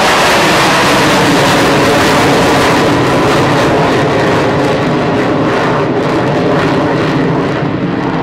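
Avro Vulcan delta-wing bomber's four Rolls-Royce Olympus turbojets roaring loudly as it climbs away after take-off, the roar easing slightly near the end as it pulls away.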